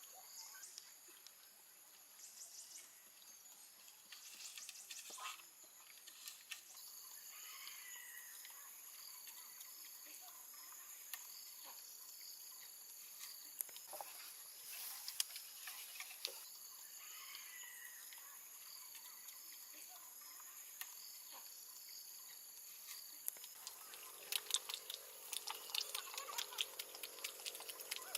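Faint outdoor ambience of insects: a steady high drone with a pulsed call repeating about every two and a half seconds, a few short chirps and scattered taps. Near the end, a quick run of clicks over a low hum.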